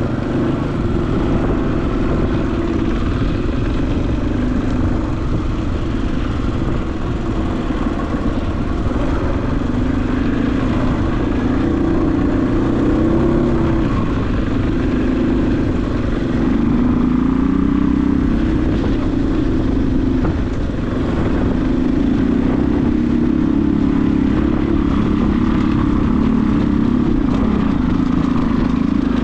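Dirt bike engine running while riding a rough dirt track, its pitch rising and falling with the throttle.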